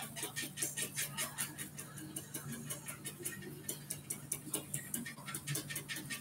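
Stencil brush dabbing chalk paint through a taped stencil onto a cabinet side: rapid, fairly even bristle taps, about five or six a second.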